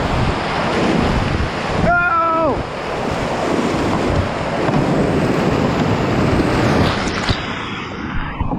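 Whitewater rapids rushing and crashing around an inflatable kayak, the water loud and steady against the microphone. A short shout cuts through about two seconds in, and near the end the sound turns muffled as the boat drives into the foam.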